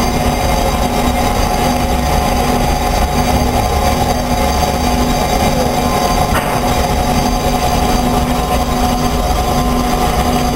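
Amada HFA 400 CNC horizontal band saw running, its band blade cutting a workpiece clamped in the vise. The result is a steady mechanical drone with a whining tone and a low hum that pulses about once a second.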